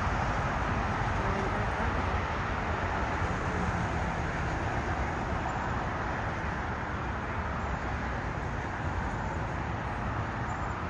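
Steady rumble of distant jet engines as a Korean Air Cargo twin-engine jet freighter moves along the runway, easing off slightly toward the end.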